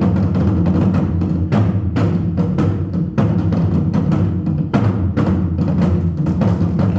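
Korean buk barrel drums beaten in a fast, dense ensemble rhythm, the strokes coming several times a second over a continuous low drum resonance.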